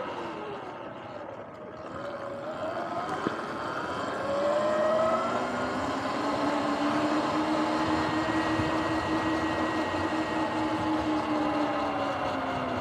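Sur-Ron X electric dirt bike's motor whine, dropping in pitch as it slows at the start, rising as it pulls away a couple of seconds in, then holding a steady pitch at cruising speed, over tyre and wind noise.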